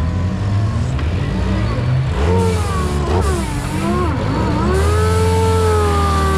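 Suzuki-based off-road proto buggy's engine under load: a steady drone at first, then from about two seconds in the revs swing up and down several times before holding high near the end.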